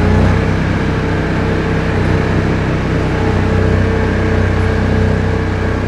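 ATV engine running steadily while driving, with a steady whine over the engine's low drone.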